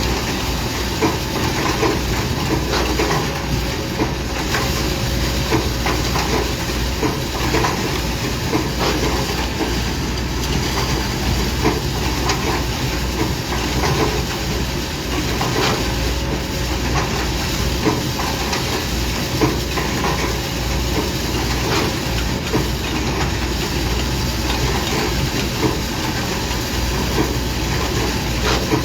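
Heavy diesel construction machinery running steadily, with a deep hum and frequent short metallic clanks and rattles.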